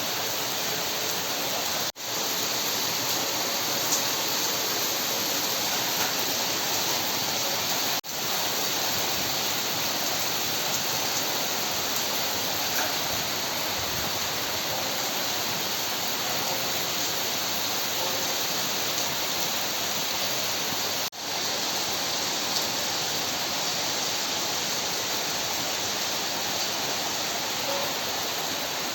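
Steady rain: a dense, even hiss of rainfall, broken by three very short dropouts where it cuts out and comes straight back.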